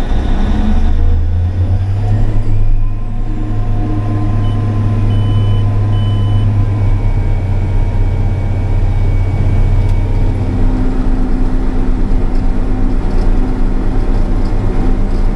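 Big Bud tractor's diesel engine pulling an air seeder cart, heard from inside the cab: a steady low drone that grows louder about a second in as the tractor moves off under load. A few short electronic beeps sound about five seconds in.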